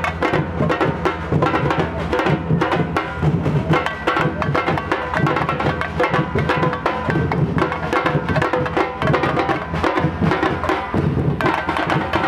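A group of marching-style snare and tenor drums played with sticks, beating out a dense, steady street rhythm.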